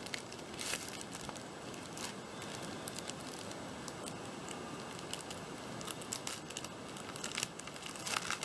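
Clear plastic wrapping and sheets of paper crinkling and rustling as they are handled, with irregular sharp crackles.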